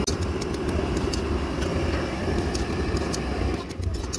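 Steel ladle stirring and scraping masala pasta in a large metal kadai, with short sharp clicks of metal on metal, over a steady low rumble.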